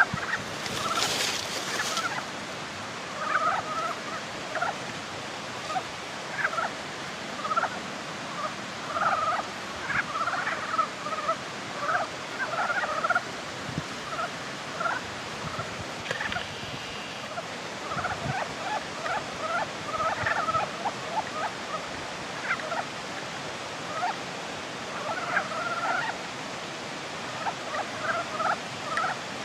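Breeding chorus of Ezo brown frogs (Rana pirica): several frogs giving short, low calls in quick overlapping runs throughout. A brief burst of noise about a second in.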